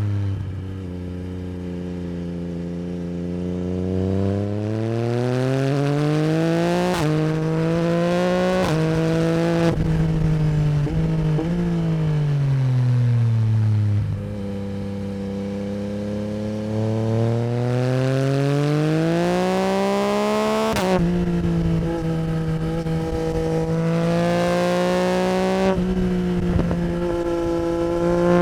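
Yamaha MT-09 SP's 890 cc crossplane three-cylinder engine through an Akrapovic Racing Line exhaust, ridden hard. The revs climb with quick upshifts, then fall away with a few sharp cracks on the overrun, then climb again to another shift and hold steady near the end.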